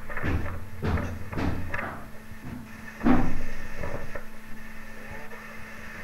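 A series of heavy bangs and knocks, the loudest about three seconds in, over a low rumble.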